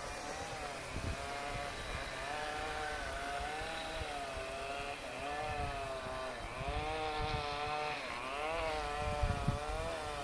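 Chainsaw running at high revs, its pitch wavering up and down repeatedly.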